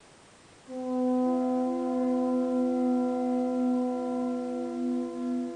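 Two conch shell trumpets (pū) blown together in long, steady blasts on two different pitches, the higher one joining about half a second after the first, sounding the call for a ceremonial entrance.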